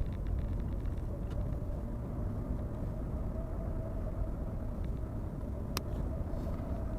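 A car driving, with a steady low rumble of road and engine noise and a faint constant hum. There is one sharp click near the end.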